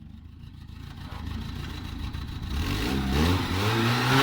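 Vehicle engine pulling away: a low rumble, then about two and a half seconds in the engine note rises in pitch, dips once and settles into a steady run as the vehicle gets under way.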